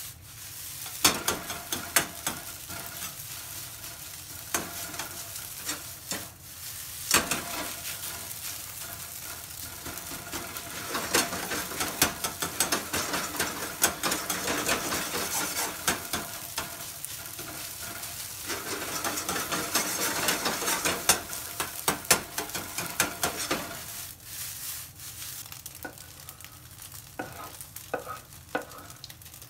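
Fried rice sizzling in a hot wok while a metal wok ladle stirs and tosses it, clacking and scraping against the pan again and again; the rice has already broken up into loose grains. Near the end the sizzle drops and only a few separate ladle taps stand out.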